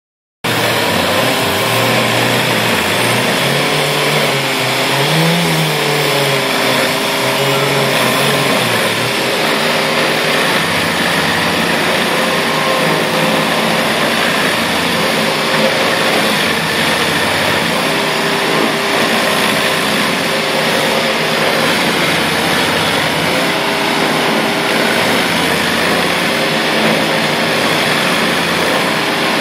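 Vermeer stump grinder running, its cutting wheel grinding into a tree stump: a loud, continuous mix of engine and cutting noise. The engine note rises and falls for the first nine seconds or so, then holds steadier.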